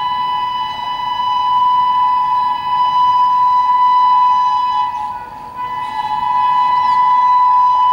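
Indian Railways locomotive air horn held in one long steady blast, weakening briefly about five seconds in before sounding on.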